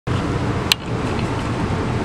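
Steady low mechanical hum and rumble, with one sharp click about two-thirds of a second in.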